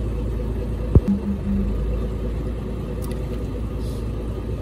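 Small boat's engine running steadily, with a single sharp knock about a second in.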